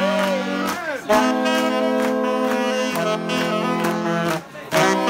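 A saxophone ensemble playing held chords over a steady beat, breaking off briefly about a second in and again near the end.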